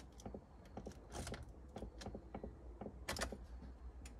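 Light, irregular clicks and jingles of a car key ring being handled and turned in the ignition of a 2012 Ford Territory, with a couple of sharper clicks about a second in and about three seconds in.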